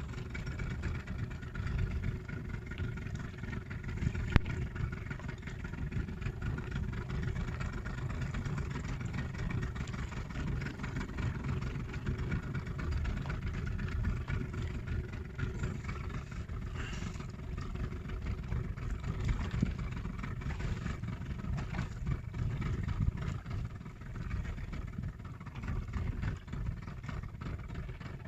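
A small fishing boat's engine running steadily, a low rumble with a faint steady hum above it.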